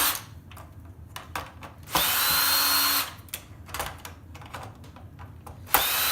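Power drill-driver spinning in two short bursts, about 2 s in and again near the end, each starting with a brief rising whine, as it backs out screws to free the hard drive. Light clicks and knocks of handling metal parts come between the bursts.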